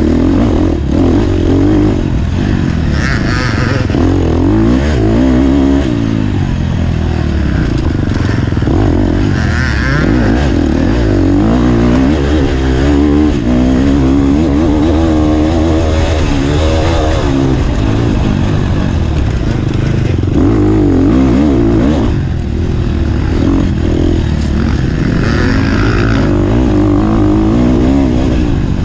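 Off-road dirt bike engine heard from on board during a hare scramble race, revving up and down again and again without a break.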